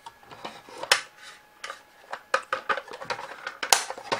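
Model dump truck's plastic chassis and body parts clicking and knocking as the stuck chassis is worked loose from the body by hand, several sharp clicks at uneven intervals, the loudest near the end.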